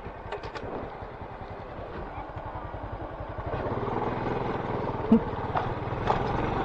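Small single-cylinder motorcycle engine running at low speed, getting louder about three and a half seconds in, with a short thump about five seconds in.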